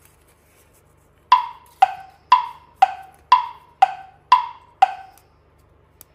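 Wood-block tick-tock sound effect: eight evenly spaced knocks, about two a second, alternating between a higher and a lower note.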